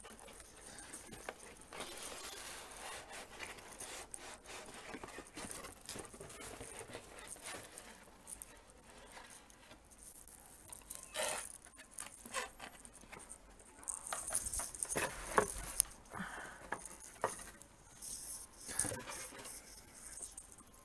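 Handling noise from unpacking a boxed figure: cardboard and clear plastic packaging rustling and scraping, with many small clicks and knocks. It grows busier and louder about two-thirds of the way through.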